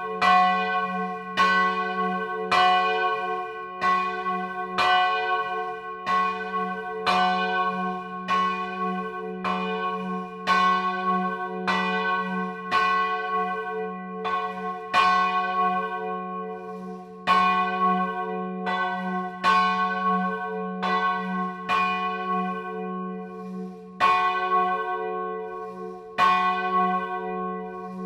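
A single church bell swung full circle (a distesa) and heard close up in the belfry. The clapper strikes about once a second, some strokes louder than others, and each strike rings on over a steady low hum.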